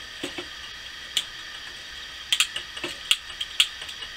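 A hand-held lighter being clicked over and over to light a candle: a string of sharp clicks, sparse at first and coming closer together after about two seconds.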